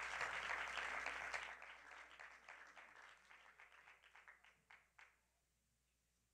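Congregation applauding: many hands clapping at first, thinning to a few scattered claps that stop about five seconds in.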